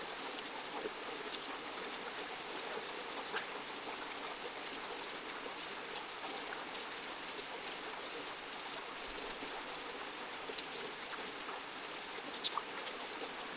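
Stream water running: a steady, even rush with a few faint ticks over it.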